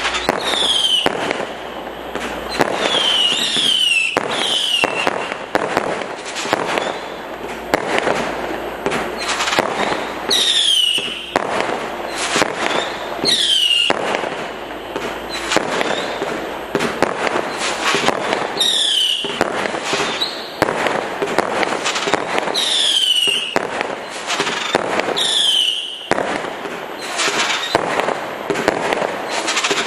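Kimbolton 'Screeching Devils' 110-shot firework cake firing continuously, a rapid run of pops and bangs. Short whistling tails that drop in pitch sound every second or two.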